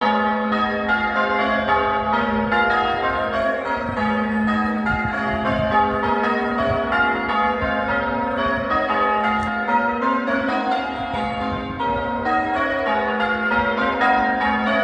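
Church tower bells rung in changes, struck one after another in a quick, even rhythm, each bell's tone ringing on under the next strikes.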